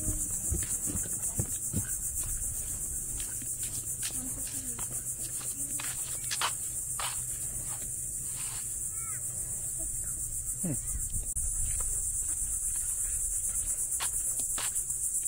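Steady high-pitched insect chorus, crickets or cicadas, trilling fast and evenly. Scattered faint clicks and a low rumble sit underneath.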